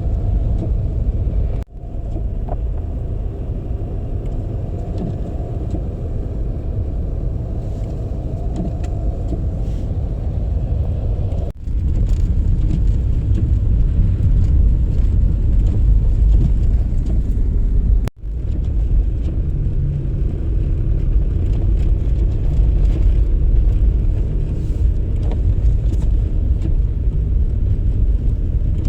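A car being driven, giving a steady low rumble of engine and road noise. The sound cuts off abruptly for a split second three times.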